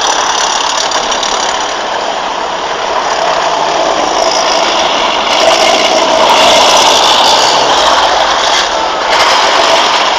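Tracked armored vehicles driving past in a column, their diesel engines running loud, growing louder about halfway through as one passes close.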